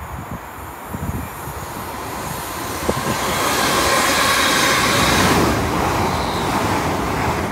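Two Class 380 electric multiple-unit trains passing each other on the double track, a rushing rumble of wheels on rails that builds to its loudest about four to five seconds in, then eases.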